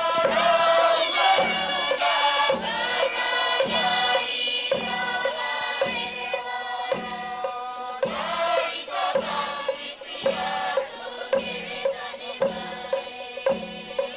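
Group of voices chanting in traditional Papua New Guinea village song over a steady drum beat, about one stroke a second.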